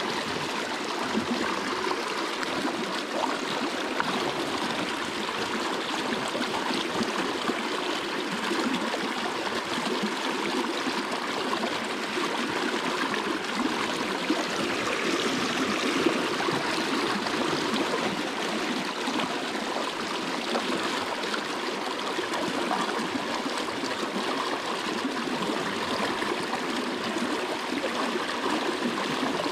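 A small, muddy river's current rushing and babbling past fallen logs at the bank, a steady sound of flowing water.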